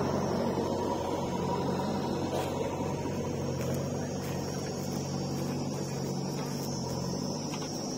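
Diesel tractor engine idling steadily. A thin high whine joins about halfway through.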